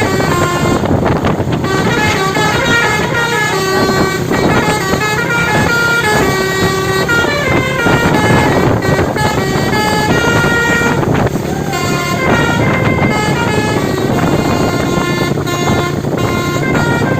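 Telolet multi-tone air horn on an Indonesian bus playing a long melody, a quick run of short notes that step up and down in pitch, over a steady background of engine and street noise.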